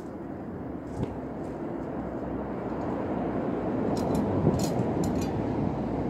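Low rumble of a passing vehicle, growing steadily louder, with a click about a second in and a few light ticks near the middle.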